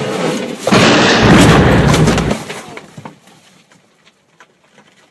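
A loud blast like an explosion, starting about a second in and rumbling for about a second and a half before dying away.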